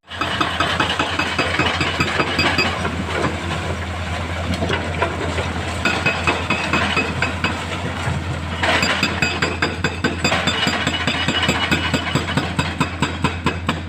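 Heavy diesel engine of mining machinery running steadily with a fast clattering rattle; the sound changes slightly about nine seconds in.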